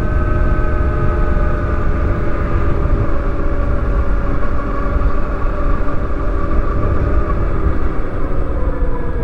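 Electric motorcycle riding along with wind rushing over the microphone, over the steady multi-tone whine of the 2020 Zero DSR's electric drivetrain. The whine eases slightly lower in pitch toward the end as the bike slows.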